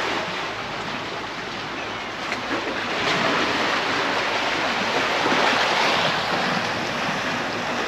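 Sea waves washing over a boulder and pebble shore, a steady rushing surf that grows louder about three seconds in.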